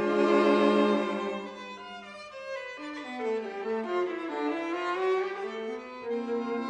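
Music played on bowed string instruments, violin and cello, with several sustained lines moving against each other in steps and slides.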